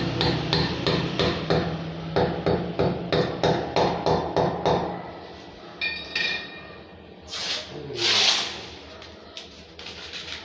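A hammer beats steadily on a hand tool held against a tiled wall, about three blows a second, and stops about five seconds in. A short clink follows, then two short scraping sounds, the second the loudest.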